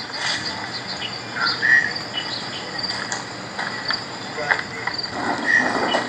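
Insects chirping in a steady high-pitched chorus, with scattered short chirps and clicks over it.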